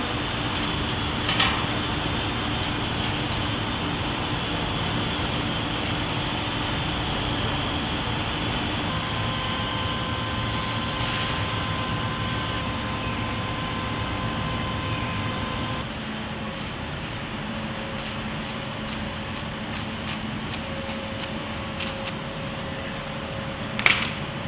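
Steady hum and rushing noise of a factory hall, with a sharp click near the end.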